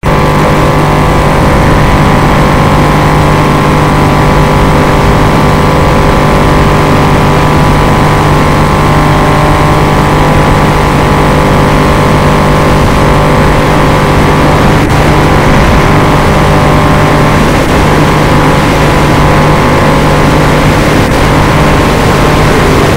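Battery-electric motor and propeller of an FPV model plane running steadily in flight, heard from on board: a loud, constant drone with a steady low hum and a higher whine over rushing air.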